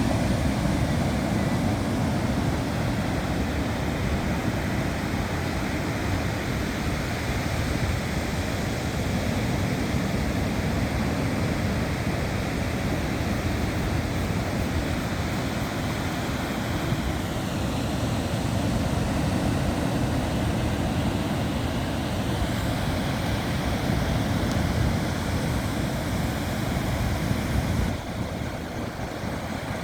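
Ocean surf and wind on the microphone: a steady rushing noise that eases a little near the end.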